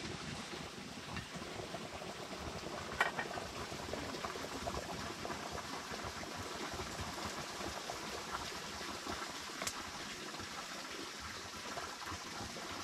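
A pot of liquid boiling steadily, with a few faint clicks, one sharper tick about three seconds in.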